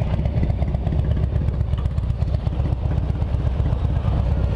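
Motorcycle engines idling steadily, a continuous low, rapidly pulsing rumble.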